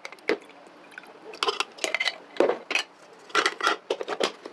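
Irregular light clinks and clatters of a glass pickle jar against the plastic bowl of a Black & Decker Handy Chopper as pickles are tipped in, then the chopper's top being set on near the end.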